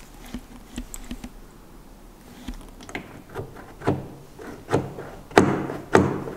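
Outside door handle of a VW Passat B5's rear door pulled and let go again and again, the handle and latch clacking. A few light clicks come first, then from about halfway sharper clacks roughly once a second, getting louder; the freshly repaired door handle and lock working.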